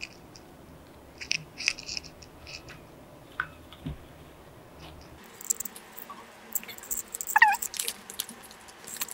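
Small folded paper slips rustling and crinkling in people's hands: a few light rustles in the first two seconds, then denser crinkling from about halfway through as the slips are unfolded.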